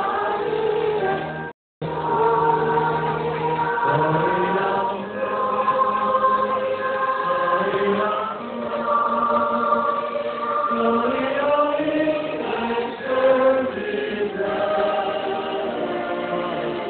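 A group of children singing a Christmas carol together in chorus, several voices holding long notes. The sound cuts out for a split second about a second and a half in.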